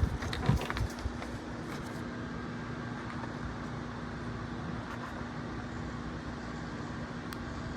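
A few light handling knocks on the smoke alarm's cardboard box in the first second, then a steady background hiss with a faint low hum.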